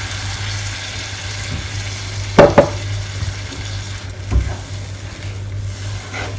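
A wooden spatula stirring thin coconut milk through sautéed onion and spices in a non-stick frying pan on a gas hob, the pan sizzling over a steady low hum. Two sharp knocks come in quick succession about two and a half seconds in, and a duller thump a couple of seconds later.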